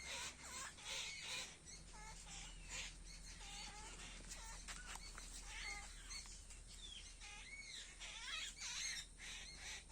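Several birds calling: a busy mix of short chirps and arched, whistled notes that rise and fall.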